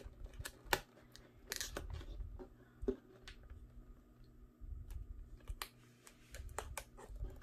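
Cardboard webcam box being handled and opened: scattered sharp clicks and ticks, a short rustle about one and a half seconds in, and low handling bumps.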